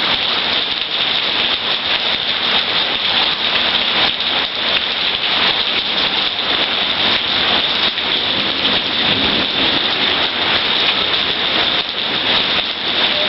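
Heavy rain falling steadily: a dense, unbroken hiss of countless drops striking surfaces.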